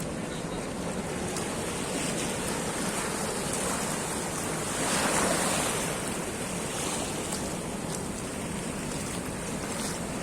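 Sea waves washing and breaking against the shore, one wave breaking louder about halfway through, with wind on the microphone.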